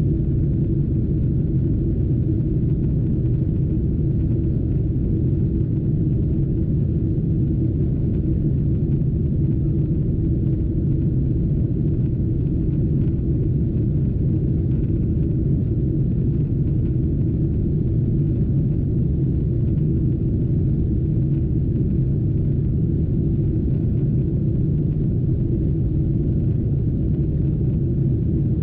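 Steady low rumble of a Boeing 777-200 heard inside the passenger cabin in flight: the even drone of the jet engines and the airflow over the fuselage. It holds the same level throughout.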